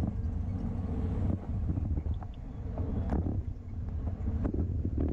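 Wind rushing over the microphone of a bike-mounted action camera while riding at race speed, with a steady low rumble of road and tyre noise. A few sharp clicks come in the second half.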